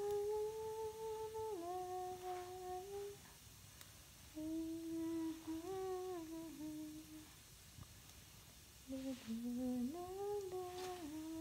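A woman humming a slow tune in three phrases of long held notes that step gently up and down, with short pauses between the phrases.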